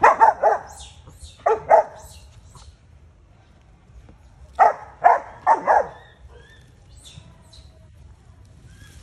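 Rottweiler barking in three bursts: three quick barks, then two more about a second and a half in, then four more around five seconds in, with quiet gaps between.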